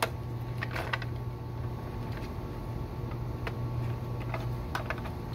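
A few sharp clicks and small scrapes from a flat-blade screwdriver prying at the plastic connectors of a car's fuel pump module, over a steady low hum.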